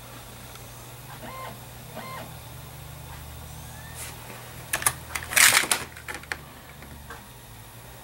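Computer's optical disc drive spinning up a just-inserted Windows 8 install disc: a low hum that swells as the disc gets up to speed, with two short whirs from the drive's motor a second or two in. About five seconds in, a loud burst of clattering and knocks.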